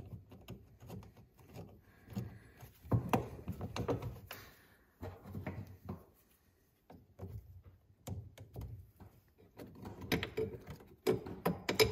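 Handling noises from fitting a rubber auger paddle onto a snowblower's steel auger: scattered knocks, rubs and clicks as the paddle is pressed into place and a bolt is pushed through, with a short pause in the middle.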